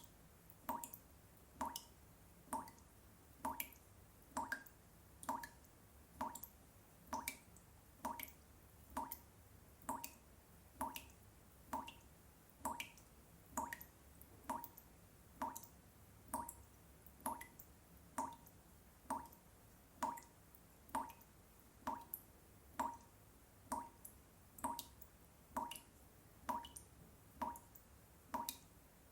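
Water dripping from a tap, drops falling at a steady pace of a little more than one a second, each landing with a short pitched plink.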